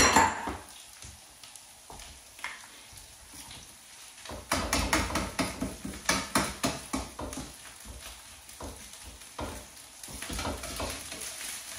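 Onions and peppers frying gently in oil in a frying pan, with a faint sizzle, stirred with a utensil that scrapes and taps against the pan. A sharp knock on the pan right at the start, then a busy run of stirring scrapes and clicks from a third of the way in.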